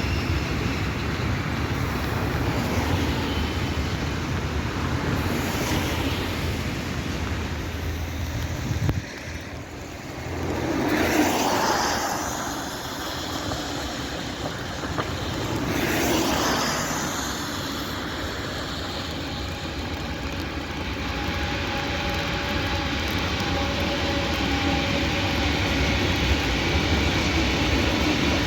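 Steady outdoor rumble and hiss of road traffic on wet roads, with two vehicles swishing past about eleven and sixteen seconds in. From about twenty seconds on a steady hum with held tones slowly grows louder.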